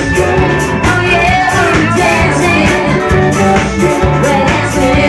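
Live pop-rock band playing loud: a singer over electric guitar, held bass notes and a steady drum beat.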